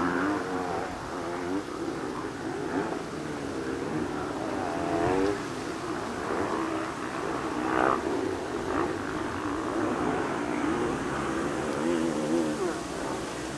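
Airbus A320's IAE V2500 jet engines on final approach: a steady jet whine and rush whose tones waver up and down.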